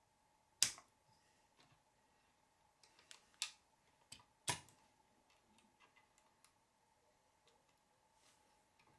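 A few sharp plastic clicks and snaps, the loudest about half a second in and about four and a half seconds in with a cluster between, as ball cups on RC car turnbuckles are pressed onto their ball studs.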